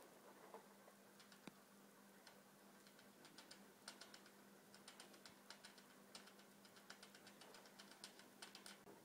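Faint, irregular light clicks and ticks as a pet rat clambers on a wire cage's metal bars and tugs at a drawstring through them, sparse at first and coming in quick clusters from about three seconds in.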